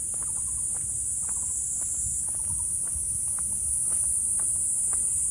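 Steady, high-pitched chorus of insects droning without a break, with light irregular ticks about three times a second and a low rumble underneath.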